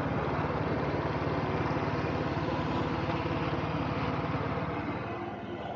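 Royal Enfield Bullet's single-cylinder engine running steadily while riding, an even, rapid thump under road and wind noise, easing off slightly near the end.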